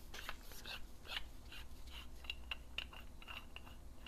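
Faint small clicks and short high squeaks as the threaded housing of a high-pressure oil-water separator is twisted open by hand.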